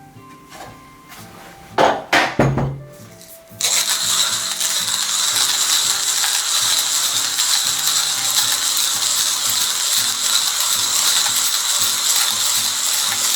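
A couple of knocks and clatters, then about three and a half seconds in, an Apollo manual hand grinder starts grinding coffee beans: a steady, gritty grinding as the crank is turned.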